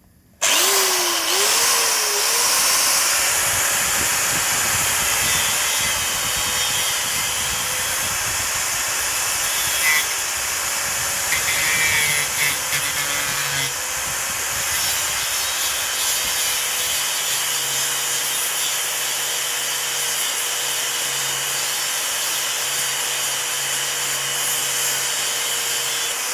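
Electric angle grinder switched on about half a second in, its motor whine climbing to a steady pitch, then running continuously with the noise of the disc cutting acrylic sheet.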